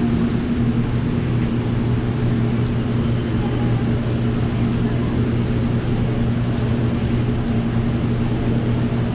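Steady low mechanical hum at a constant pitch, like an engine running, over an even rushing noise.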